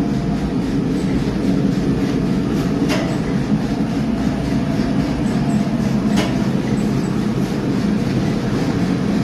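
Lavash bread production machine running, a steady mechanical drone. A sharp click sounds about three seconds in and again about six seconds in.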